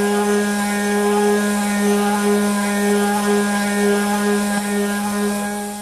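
Router table running with a 3/4-inch radius bit cutting a flared profile on the edge of a wood blank: a loud, steady motor hum with a noisy edge, fading near the end.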